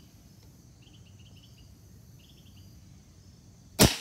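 The trigger of a cocked Winchester Model 70 big-bore PCP air rifle breaks under a trigger-pull gauge, and the action fires with one sudden loud crack near the end, followed by a short ringing tail. Faint insects chirp in short repeated trills before it.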